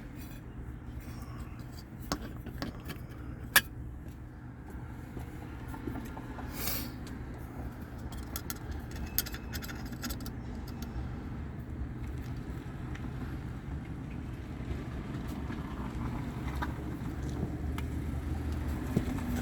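Light metallic clicks and clinks of hand tools and furnace parts being handled, with one sharper click about three and a half seconds in, over a steady low hum.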